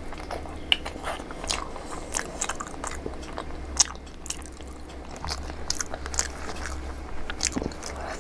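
Close-up crunching and chewing of pani puri: irregular crisp crackles as the hollow fried puri shells break in the mouth, over a low steady hum.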